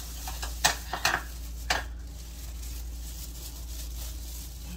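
Four short knocks and clinks of kitchenware, a utensil against bowls, within the first two seconds, then only a low steady background hum.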